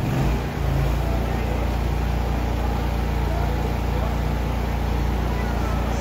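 Walt Disney World Railroad steam train running: a steady low rumble under a broad rushing noise. It rises suddenly at the start and then holds even.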